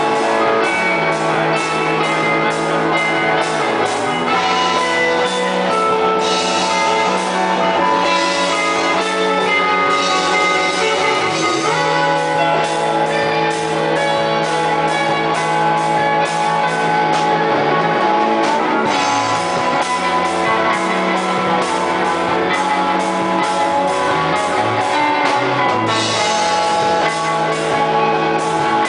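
Live rock band playing loudly and steadily: electric guitars with sustained notes over a drum kit keeping a regular beat.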